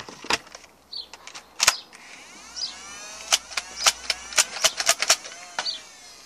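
Nerf Elite XD Stryfe, just jammed, giving a run of sharp plastic clicks and clacks. In the middle its electric flywheel motors whir up and wind down.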